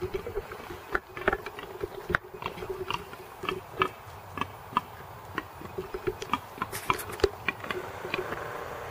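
Wild boar grunting low, with many short sharp clicks scattered throughout.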